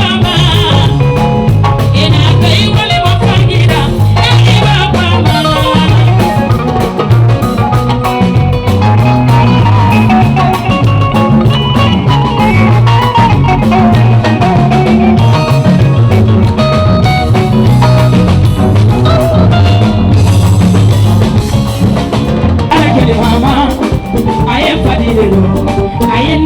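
Upbeat dance music with a steady bass line, drums and melodic instruments, with some singing.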